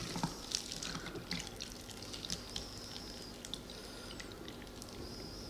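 Carrot juice dripping from a squeezed filter-cloth bag into a container, a quick run of drips that thins out after about two and a half seconds.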